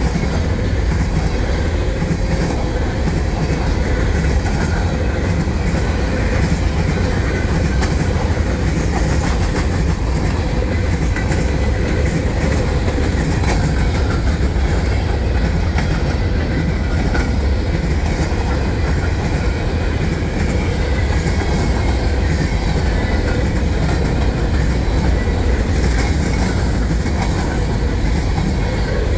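Open-top hopper cars of a manifest freight train rolling past close by: a steady, loud rumble of steel wheels on the rails that holds even throughout.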